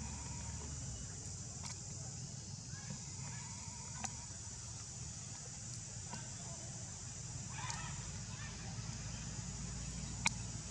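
Steady high insect drone of a tropical forest, with a few short animal calls about three and eight seconds in and two sharp clicks, the second near the end.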